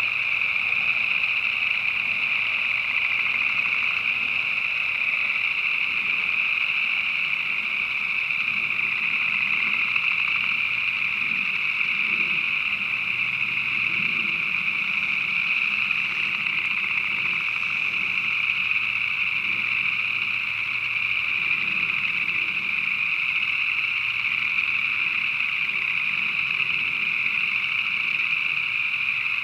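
Many frogs calling at once in a dense, unbroken, high-pitched chorus that holds steady throughout.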